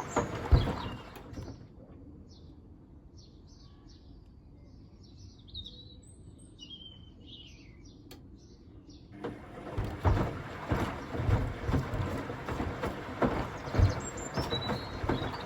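Zanussi Essential ZWF12070W washing machine drum tumbling whole watermelons on a cotton wash, with heavy, irregular thuds as they fall. The tumbling stops for about eight seconds, during which birds chirp, then starts again about nine seconds in.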